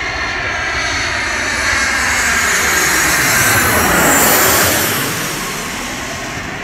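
Boeing 737 jet airliner on landing approach passing low overhead, its engine noise swelling to a peak about four seconds in while the whine drops in pitch as it goes by, then fading away.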